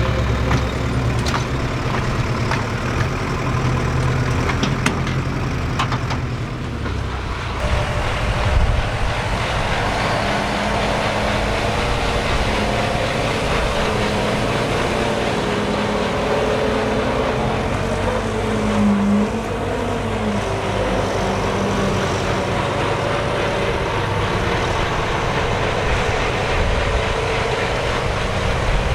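Heavy diesel farm machinery running steadily under work; the engine sound shifts about seven seconds in.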